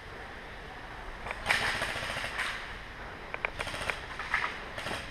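Airsoft guns firing in short rapid bursts of clicking pops, starting about a second and a half in.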